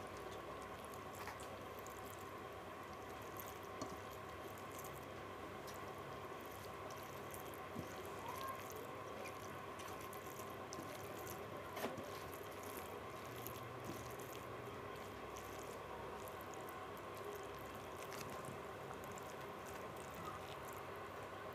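Fingers squishing boiled rice into runny dal on a steel plate: faint wet squelching with scattered small clicks over a steady low background hum.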